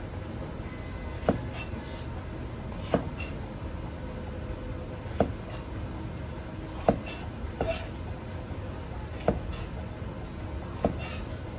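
Kitchen knife striking a cutting board in single, separate cuts about every one and a half to two seconds, as in slicing green peppers, over a steady low kitchen hum.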